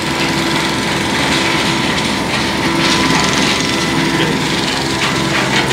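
Rotary drum kiln of a gypsum plant running, its turning drum and electric drive motor making a steady mechanical hum with a faint steady whine; the kiln is roasting gypsum into plaster of Paris.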